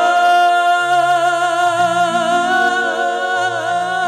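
A male singer holds one long sung note (alaap) into a microphone, steady at first and wavering slightly near the end, over sustained low accompaniment chords that change a few times.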